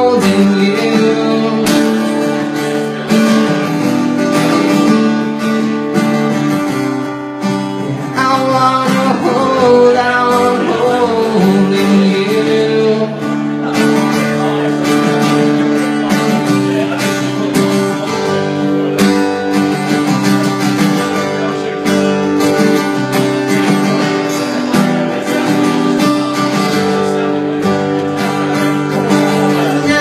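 Acoustic guitar strummed steadily through a chord progression, an instrumental passage between verses of a solo acoustic song.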